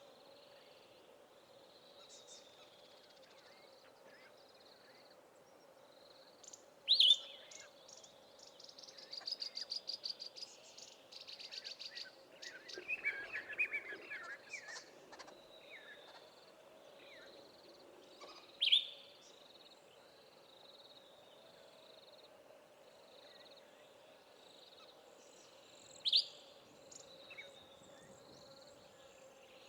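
Wild birds of the South African bush calling: a soft series of evenly repeated high notes runs throughout, a loud short call with a falling pitch sounds three times, several seconds apart, and in the middle comes a rapid high trill followed by a burst of chattering. A steady low hum lies underneath.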